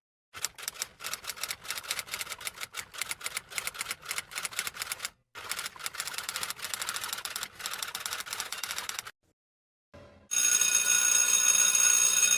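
Rapid, irregular keystroke clicks of typing, pausing briefly about five seconds in and stopping about nine seconds in. After a short silence, about two seconds of steady, bright bell-like ringing follow near the end.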